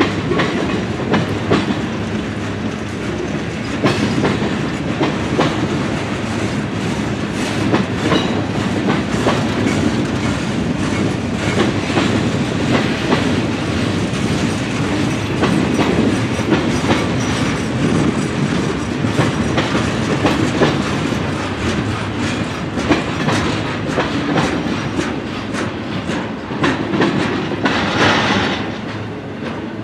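Freight train cars rolling past with a steady rumble, the wheels clacking irregularly over rail joints. A brief higher-pitched sound rises near the end.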